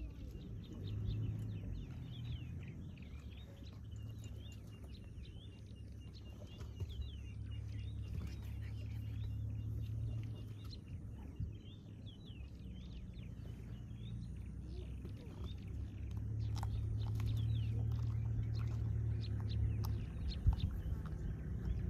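Small birds chirping again and again, with a run of quick high repeated notes about four seconds in, over a low steady rumble that swells and fades.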